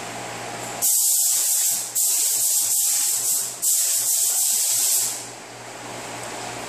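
Compressed-air paint spray gun hissing in three bursts of about a second or more each, the trigger pulled for each pass while spraying a sealer coat onto a car hood. A steady low hum runs underneath.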